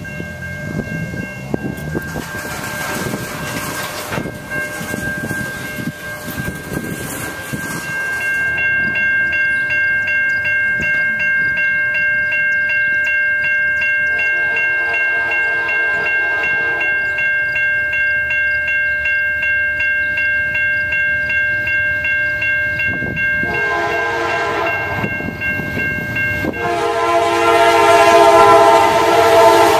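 Freight train rolling past with steady wheel and car noise. After a cut, electronic grade-crossing bells ring steadily while an approaching Norfolk Southern diesel locomotive sounds its multi-chime horn for the crossing: three long blasts, about halfway through and twice near the end, growing louder as it nears.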